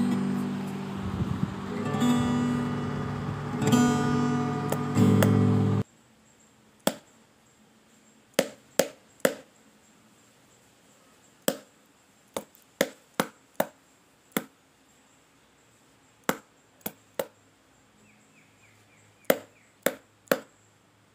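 Guitar music for about six seconds that cuts off suddenly. Then a heavy cleaver chopping raw chicken on a wooden chopping block: about sixteen sharp single chops, often in quick runs of two to four with short pauses between.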